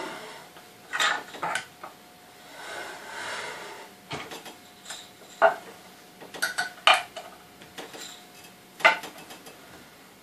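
A metal wrench clinking against the bolt and washers of a wooden spinning wheel's drive wheel as it is loosened, in a series of sharp clinks and knocks, with a longer scraping sound about three seconds in.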